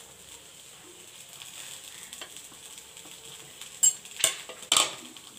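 A spoon stirs a small pan of chopped okra and grated coconut over a gas flame, with a faint sizzle. About four seconds in, the spoon scrapes and knocks loudly against the pan three times in quick succession.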